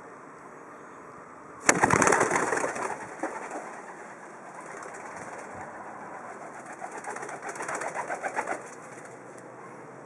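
A white dove's wings clap loudly as it takes off, about two seconds in. Near the end comes a run of rapid wingbeats growing louder as it flies back in and lands.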